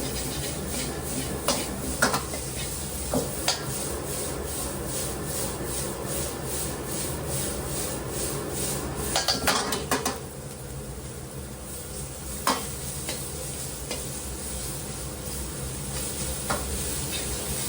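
Fried rice and a large heap of chopped green onion stir-fried in a hot pan: steady sizzling with a metal utensil scraping and stirring in quick, regular strokes, and now and then a louder clank against the pan. The sizzle softens from about halfway, as the green onion cooks down.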